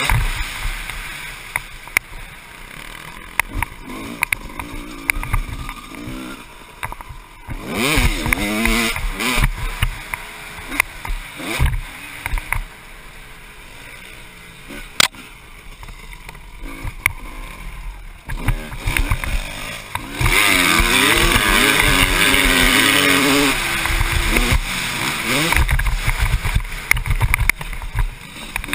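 1996 Honda CR250's two-stroke engine revving up and down as the dirt bike is ridden hard over a dirt track, with scattered sharp knocks. It is loudest for a few seconds about two-thirds of the way in.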